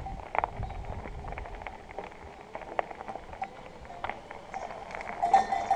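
Electric mountain bike rattling over a loose gravel track: irregular clicks and knocks from the bike and its handlebar phone mount, over a faint steady whine from the Shimano STEPS E8000 drive motor. A louder clatter comes near the end.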